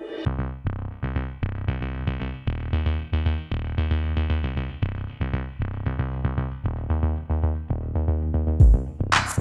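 Electronic background music: quick, short synth notes over a bass line and drum-machine beat, with sharper drum hits coming in near the end.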